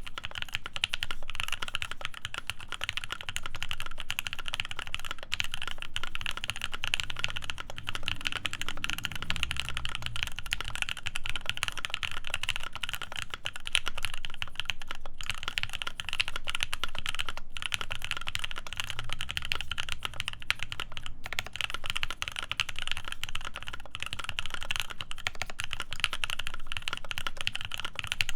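Continuous, rapid typing on a mechanical keyboard: a CannonKeys Devastating TKL with Krytox-lubed C3 Tangerine linear switches, a full FR4 plate and PBT keycaps, with dense, evenly paced keystrokes.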